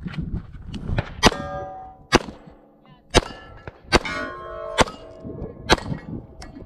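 Semi-automatic pistol firing six shots at steel target plates, about one a second, most followed by the ringing clang of struck steel.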